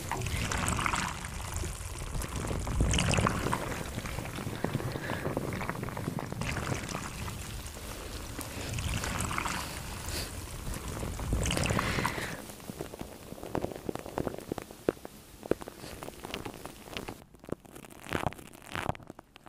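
Close-miked hand sounds: palms and fingers rubbing and swishing right in front of the microphone, in uneven swells with a low rumble. About two-thirds of the way through it drops quieter, leaving soft crackles and scattered light clicks.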